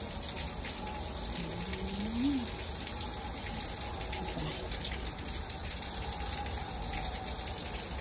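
Water still rushing steadily beneath and behind a frozen waterfall, a continuous gushing hiss. About two seconds in there is one short hummed vocal sound that rises and falls in pitch.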